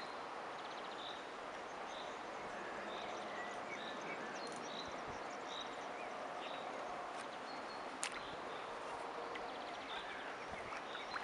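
Quiet open-air lakeside ambience: a steady background hiss with faint, high chirps repeated about once a second, and a single sharp click about eight seconds in.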